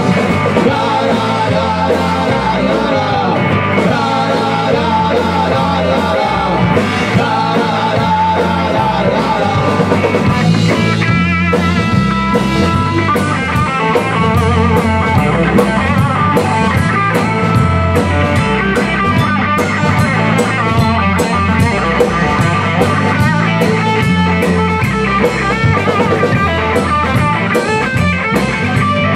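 Live rock band playing: electric guitar, bass guitar and a Tama drum kit with a steady drum beat.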